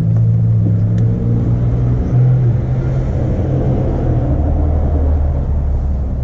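An engine running steadily with a low hum, its pitch wavering about two seconds in and settling lower over the last couple of seconds.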